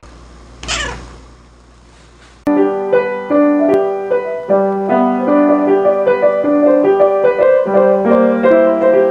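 Yamaha grand piano being played, notes ringing and overlapping slowly from about two and a half seconds in. Before that there is a brief falling sweep.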